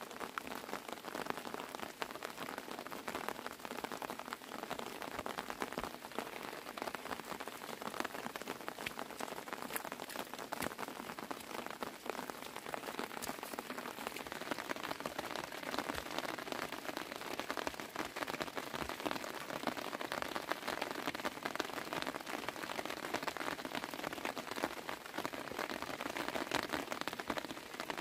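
Steady rain pattering, a dense run of small drop ticks over an even hiss.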